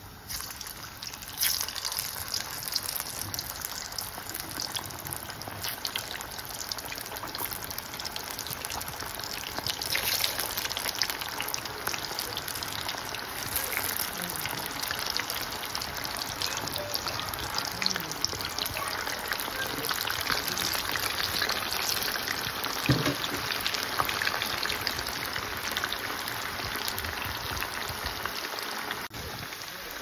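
Skin-on hand-cut potato chips deep-frying in hot oil in a pan: a dense, steady sizzling crackle of bubbling oil that comes up suddenly at the start and stays strong.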